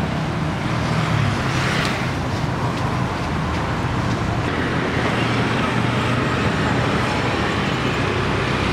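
Steady road-traffic noise, an even rumble with a constant low hum and no distinct events.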